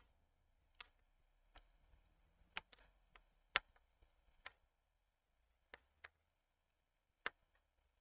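Knitting needles clicking against each other as stitches are worked: about a dozen faint, irregularly spaced clicks, the sharpest about three and a half seconds in and again near the end.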